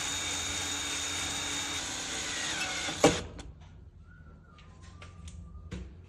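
Power drill-driver running steadily as it drives in the screw of a metal pipe clip, stopping with one sharp click about three seconds in. Faint light clicks follow.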